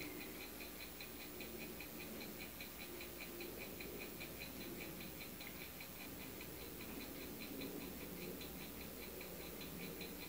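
Faint, rapid, regular ticking, about five ticks a second, over quiet room tone.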